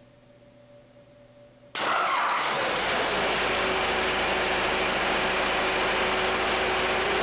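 Industrial diesel engine being auto-started by its controller: near silence, then the engine starts abruptly about two seconds in and settles into steady running.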